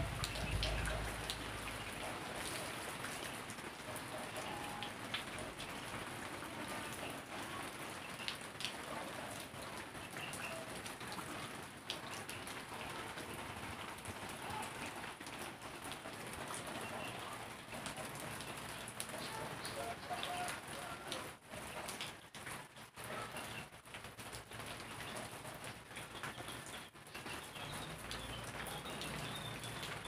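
Steady rain falling, an even hiss of drops, with a few short bird calls. The rain turns patchier and uneven in the last third.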